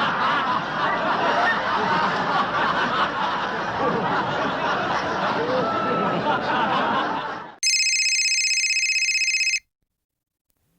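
Many voices chattering and laughing together for about seven and a half seconds, cut off abruptly. Then a telephone bell rings in one rapid, buzzing burst of about two seconds.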